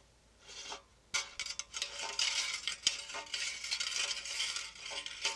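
Flat steel recoil-starter spring being pulled out of a lawn mower's pull-cord starter housing, uncoiling with continuous metallic scraping and light clinking that starts about a second in.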